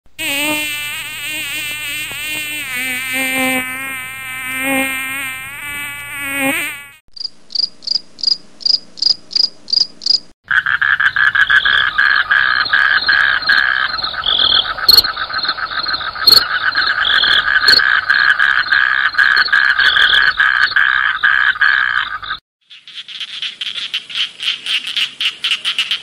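A mosquito's wavering whine, then about seven seconds in a cricket chirping at about four chirps a second. About ten seconds in a dense chorus of croaking frogs takes over, and near the end a different high pulsing call follows.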